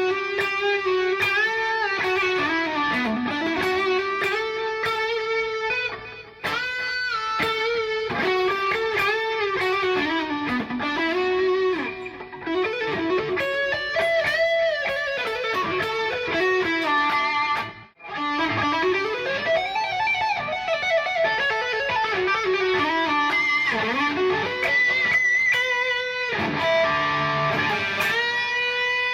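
PRS SE Custom 24 electric guitar playing a single-note lead melody full of string bends and slides, with two brief breaks in the phrasing, about six seconds in and again at about eighteen seconds.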